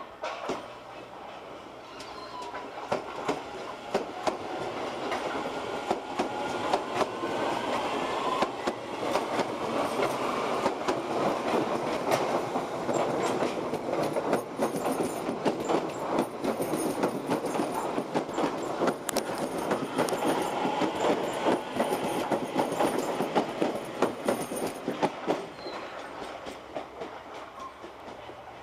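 A DART electric multiple unit train running past through the station, its wheels clattering over rail joints and points. The sound builds up, is loudest for about a quarter of a minute, then fades away near the end.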